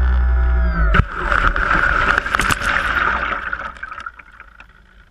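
The RC seaplane's electric motor and propeller run steadily with a whine, then cut off abruptly about a second in. Water then splashes and gurgles against the floats and camera as the nose settles at the waterline, fading to quiet near the end.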